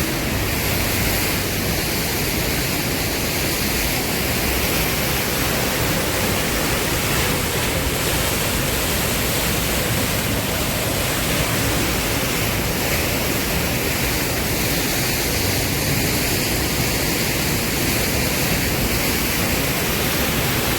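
Steady rushing of a mountain creek cascading down a rocky slope: an even, unbroken hiss with no change in level.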